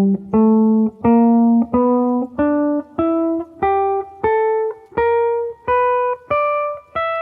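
Guitar playing the E minor (G major) blues scale ascending, one picked note at a time, about one and a half notes a second. Each note rings until the next, and the pitch climbs steadily through the run.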